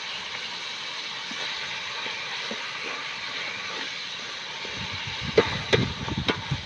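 Chicken pieces sizzling in a metal pot, a steady hiss. From about five seconds in, a metal ladle stirring the pieces, knocking and scraping against the pot.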